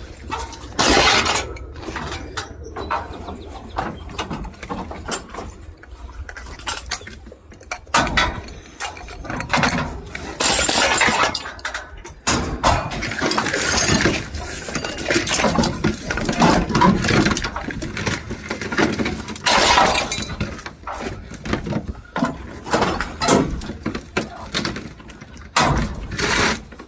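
Scrap metal being thrown down and sorted off a truck: repeated clanks, clatters and crashes of metal pieces landing, at irregular intervals.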